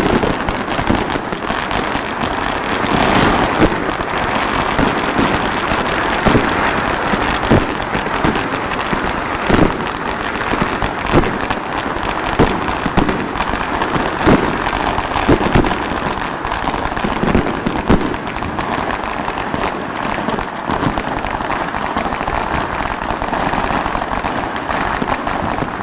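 Fireworks and firecrackers going off without pause: a dense, unbroken crackle with frequent louder separate bangs.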